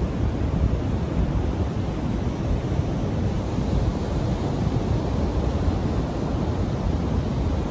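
Ocean surf breaking and washing on the shore, heard through steady wind buffeting the microphone with a heavy, flickering rumble.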